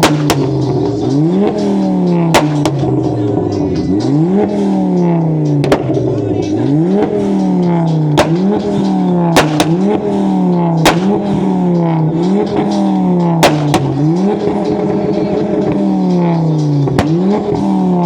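A tuned car engine revved over and over: each blip rises sharply and slides back down, with loud exhaust bangs cracking every second or two as it shoots flames.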